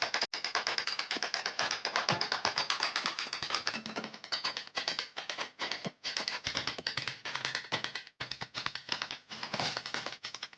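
Rapid, regular strokes of a hand tool working wood, several a second with short breaks around the middle and near the end.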